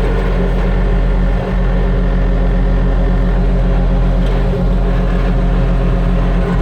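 Bobcat T870 track loader's diesel engine running steadily.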